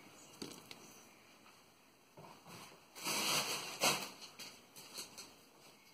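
Someone moving about the room and handling things: soft rustling and a few light knocks, with a louder rustle about three seconds in.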